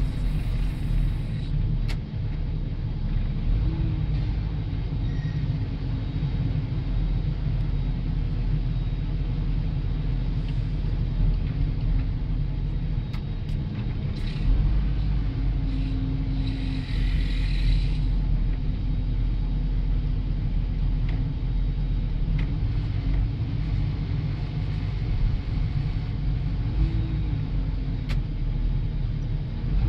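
Diesel engine of a Hyster container handler running steadily, heard from inside its cab as a continuous low rumble, with a short hiss about halfway through.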